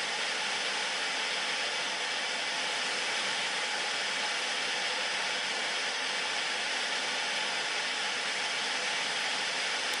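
Static hiss from an old analog television tuned to no station: a steady, even rush of white noise that cuts off suddenly at the end.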